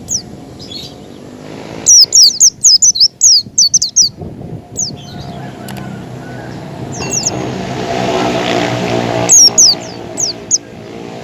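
White-eyes (pleci) calling in quick runs of short, sharp, downward-sliding whistles: a rapid run of a dozen or so about two seconds in and a shorter run near the end. Beneath them a motor vehicle's engine hums, growing louder toward the middle and falling back just as the last run starts.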